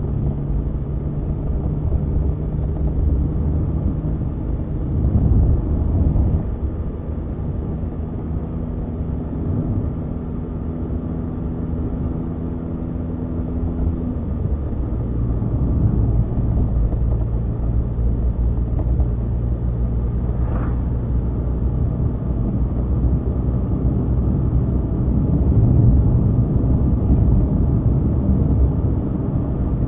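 Car engine and tyre noise heard from inside the car while driving at a steady pace. The engine note shifts about halfway through.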